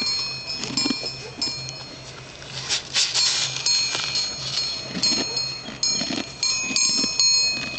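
A donkey licking and crunching salt, in short noisy bursts about every second or so, over insects chirring in steady high-pitched runs that start and stop.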